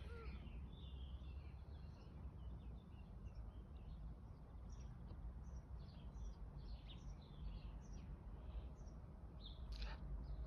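Faint garden ambience: a steady low rumble with small birds chirping on and off in the background, and one brief sharp noise near the end.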